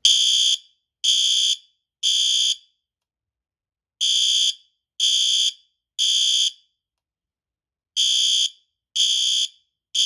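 System Sensor L-series fire alarm horn strobe sounding its horn on the normal setting: high-pitched half-second blasts in groups of three, a second apart, with a longer gap between groups. This is the temporal-three evacuation pattern; two full groups sound and a third begins near the end.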